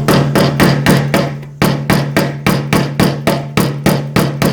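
Rapid, even hammer taps on metal at the fuel pump mount on top of a Chevrolet C10 fuel tank, about four or five blows a second, as the pump assembly is knocked loose. A steady low hum sounds under the blows.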